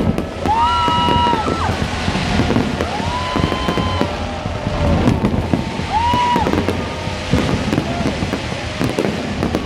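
Fireworks display going off: a continuous crackle and popping from aerial shells and ground fountains. Several held high tones, each about a second long, sound over it.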